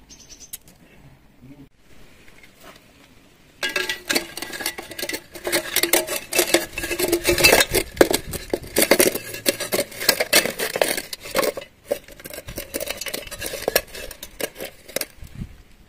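Stripped wire pieces being stuffed by hand into a rusty tin can: dense, irregular metallic rattling and scraping of wire against the can's tin walls and lid, starting a few seconds in.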